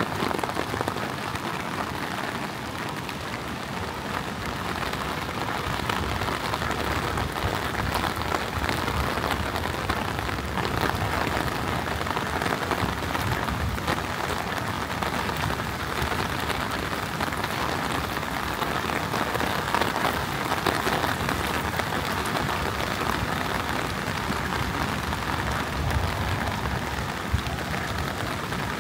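Heavy rain falling in a steady downpour, an even hiss of drops that stays level throughout.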